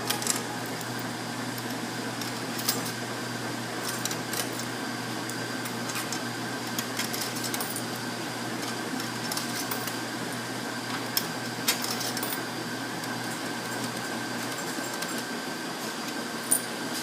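Steady mechanical hum of machines running, with a faint high whine and scattered light clicks and clinks.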